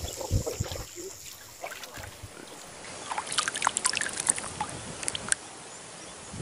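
Shallow water sloshing and trickling around someone wading, with a quick run of small splashes and drips from about three seconds in.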